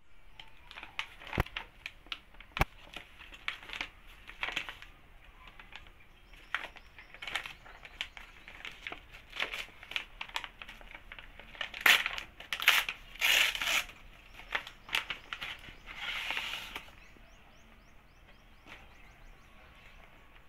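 Brown paper mailer bag crinkling and rustling as it is handled and pulled open, with sharp crackles throughout. The loudest stretch of crinkling and tearing comes about twelve to fourteen seconds in, with another burst near seventeen seconds, after which it goes quiet.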